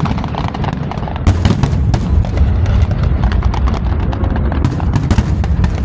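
Fireworks going off in quick succession: a dense run of sharp pops and crackles over a continuous low rumble of booms.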